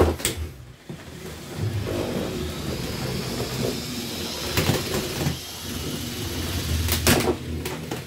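Lego combat robots battling: electric drive and weapon motors whirring, with sharp plastic clattering hits as the spinning disc and flailing arm weapons strike, once at the start, once about halfway through and a quick flurry near the end.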